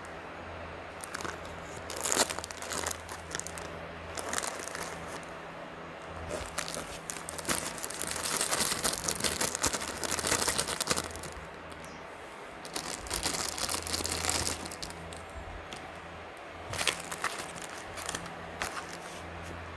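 Plastic packaging crinkling in irregular bouts as it is handled, loudest over several seconds in the middle, over a steady low electrical hum.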